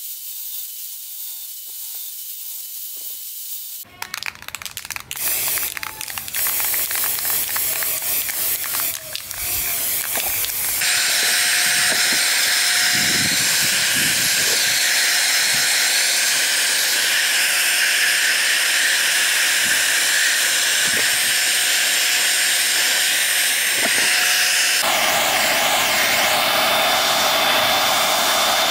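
A handheld heat gun blowing steadily, a loud even rush of air with a faint thin whine, aimed at the white plastic base of a fan; about four seconds before the end its rush turns lower and fuller. Before it, an angle grinder runs quietly, followed by several seconds of knocks and clatter.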